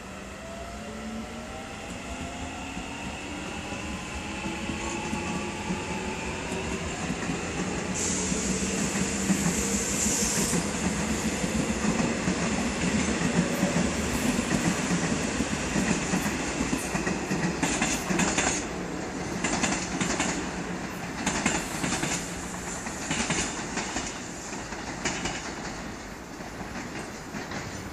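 Korail Line 1 electric multiple unit passing close by as it gathers speed, its traction motor whine gliding up in pitch. About eight seconds in there is a brief high squeal. In the second half its wheels clack over rail joints in irregular runs.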